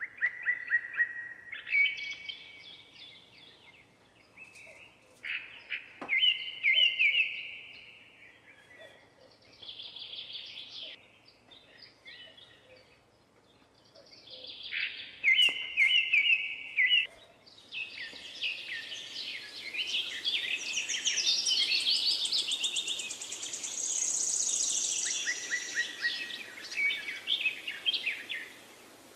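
Birds singing and chirping in short repeated phrases, with several songs overlapping in the second half.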